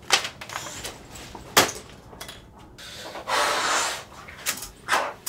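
Sharp knocks against a wooden door, one at the start and a louder one about a second and a half in, then a long ragged breath about three seconds in and a few more knocks near the end.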